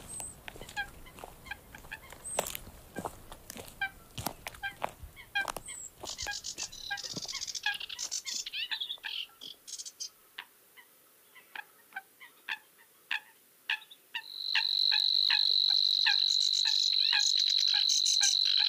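Marsh birdsong. A Eurasian coot gives short, sharp calls, repeated about twice a second, and a brief rapid burst of higher song comes about six to eight seconds in. About fourteen seconds in, a steady high reeling trill starts and is the loudest sound.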